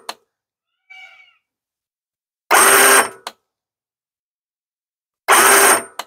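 Powerwinch P92001 electric camper-lift winch running in short bursts of under a second, twice, each followed by a click. The lower limit switch is cutting the winch off while it is being adjusted, so the winch briefly works and stops again.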